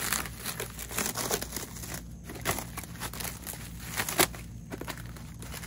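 Clear plastic packaging crinkling and tearing as it is pulled off rubber-coated steel kayak-rack parts, with one louder snap of the plastic about four seconds in.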